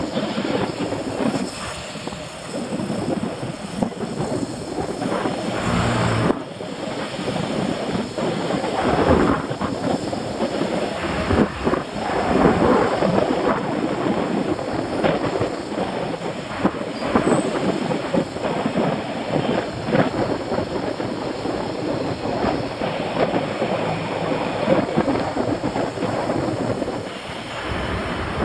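Wind buffeting the microphone with road noise from a moving bicycle ride, a steady rough rushing that swells and dips unevenly.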